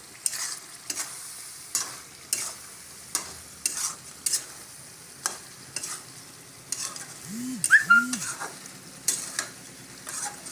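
Mutton curry sizzling as it fries in a pan, with a spatula scraping the pan in regular strokes about every half second as it is stirred. About three-quarters of the way through, a short two-part call briefly rises above the frying.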